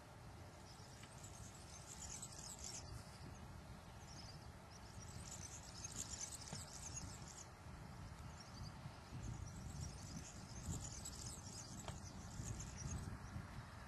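Insects chirping in repeated trains of rapid high pulses, each a second or two long, over a low rumble of wind on the microphone.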